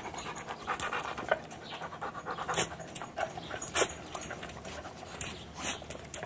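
Yellow Labrador retriever panting up close, with a few sharp clicks.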